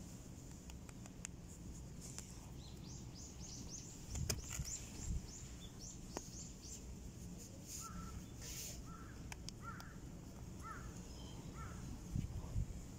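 Small birds calling: a quick run of high, rising chirps for several seconds, then a handful of short, lower calls. Underneath are a low rumble and a few bumps from a phone being handled close to a cat.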